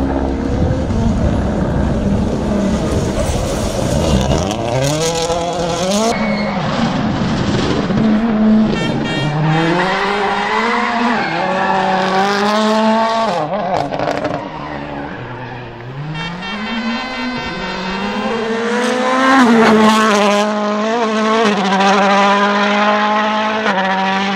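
Toyota Yaris WRC rally car under hard acceleration, its turbocharged four-cylinder engine revving up through the gears with a quick drop in pitch at each shift. This repeats over several runs, then settles on a steady held note near the end.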